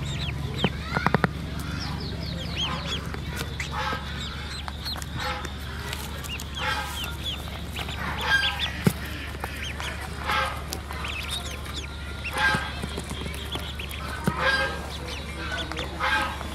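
Ducklings peeping continuously in short, high, falling chirps, with lower, harsher calls every couple of seconds and a few sharp clicks about a second in.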